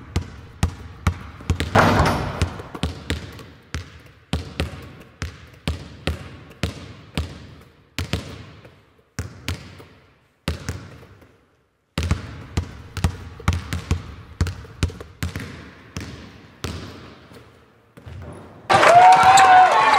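A basketball being dribbled on a hard gym floor, about two bounces a second, each bounce echoing; the dribbling stops for a moment around the middle, then resumes. Near the end it gives way to loud crowd noise with cheering voices.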